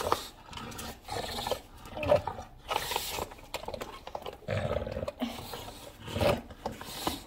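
English bulldog growling and grunting as it gnaws on the nose of a skateboard, in a string of irregular rough bursts.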